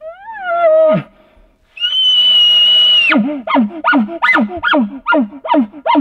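Elk bugle call blown through a bugle tube: a low note that rises and bends down, then a long high whistle held for about a second, then a string of chuckle grunts, about three a second.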